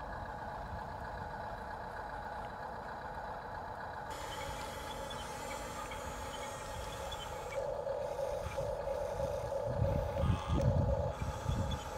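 Electric drive motors of an RC tracked bulldozer whining steadily as it drives over sand. The whine grows louder in the second half, with a louder, rougher stretch near the end.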